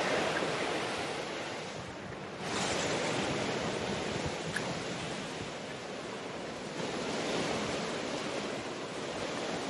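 Rushing creek water: a steady wash of flowing water over rocks, dipping briefly about two seconds in before coming back.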